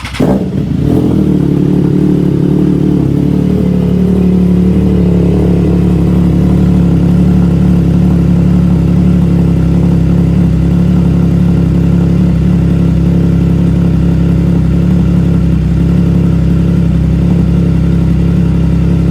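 Triumph Trident 660's three-cylinder engine cold-starting through a full aftermarket exhaust with an added resonator. It catches right away and settles into a steady, loud, deep idle.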